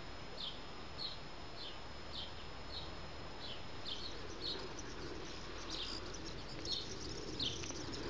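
A bird repeating a short, high chirp about twice a second at an even pace. From about halfway, other bird calls chirp in over it.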